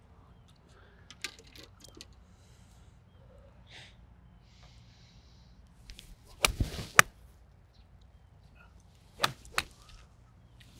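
Golf balls struck by clubs on a practice range: a pair of sharp cracks about six and a half seconds in, and another pair about nine seconds in.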